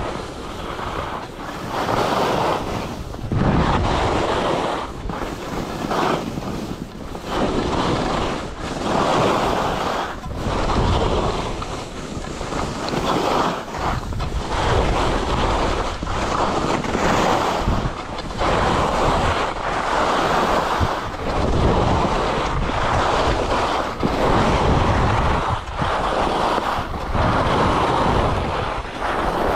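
Skis carving down a groomed piste: the edges hiss and scrape on the snow, swelling with each turn about once every second or so, over wind rushing across the microphone.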